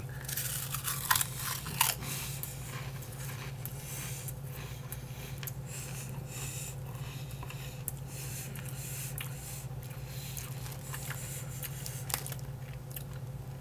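Potato chips being crunched and chewed, with the chip bag rustling and crinkling as it is handled, loudest in the first two seconds. A steady low hum runs underneath.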